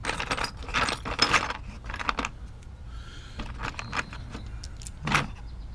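Small plastic and metal toy pieces clattering and clicking as they are handled and rummaged through in a box: a quick run of clicks over the first two seconds and a few more near the end, over a steady low hum.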